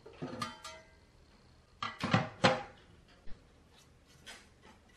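Stamped-steel speaker frames clanking on a wooden workbench as they are handled and set down: a short ringing rattle at the start, then three louder metallic knocks with a ring about two seconds in, and a single click. Soft scratches of a paintbrush on the metal frames follow near the end.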